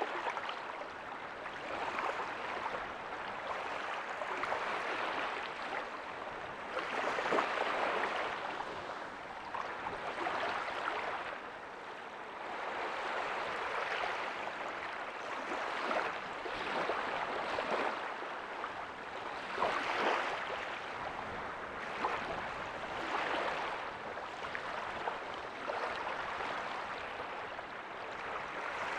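Ocean waves breaking softly on a beach: a continuous wash of surf that swells every few seconds as each wave comes in.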